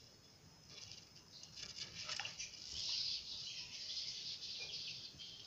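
Shallow water splashing and swishing in a metal tub as a hand moves through it among small fish, with scattered light patters and a longer swish about halfway through.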